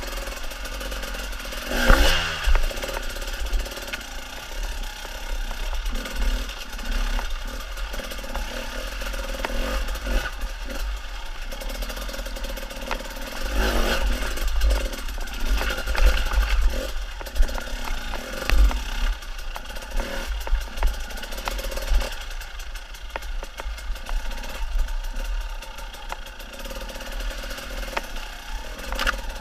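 Enduro dirt bike engine revving up and down as the bike climbs a rocky stream bed, with clatter of the wheels and chassis over stones.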